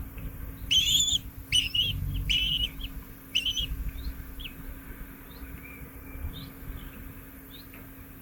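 Birds calling at a nest: four loud, harsh calls in the first three and a half seconds, then scattered short, thin chirps, over a low rumble.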